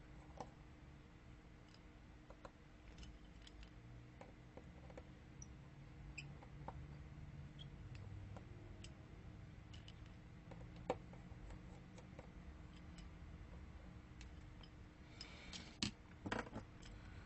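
Faint, scattered clicks and ticks of small tools on an iPhone 7 Plus's tiny screws and metal brackets, as the screws over the home button connection are taken out. There is a sharper click about eleven seconds in and a quick run of clicks near the end, over a faint steady hum.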